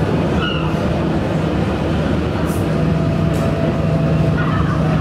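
Model diesel locomotive's sound unit playing a steady low engine drone as the locomotive hauls container wagons.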